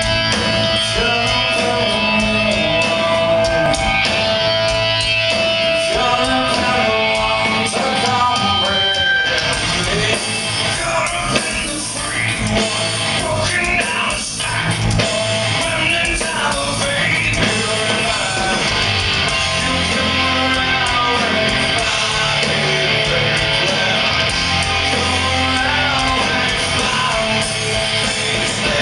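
Live rock band playing loud distorted electric guitars, bass and drums, with a sung lead vocal coming in about ten seconds in, recorded from within the audience.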